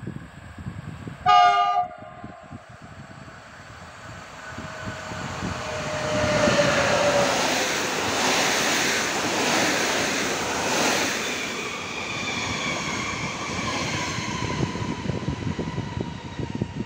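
An EU160 electric locomotive hauling PKP Intercity coaches gives one short horn blast about a second in. It then approaches and passes at speed, the rushing rumble of the train swelling to a peak and slowly fading as the coaches go by.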